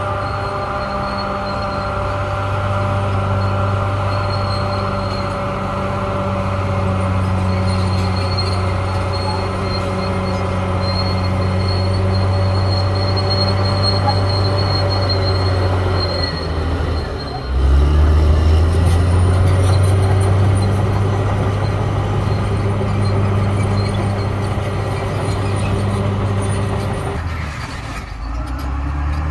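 Caterpillar D6R XL bulldozer running under work: a steady low diesel drone with a thin whine over it. About halfway through the engine note sags for a moment, then comes back louder; it sags again briefly near the end.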